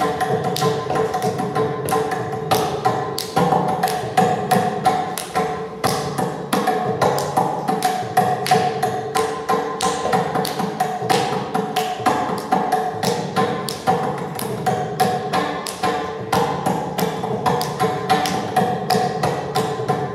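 Mridangam playing a fast, dense stream of strokes in Adi tala, over a steady sustained drone pitch in a Carnatic concert piece in Mohana raga.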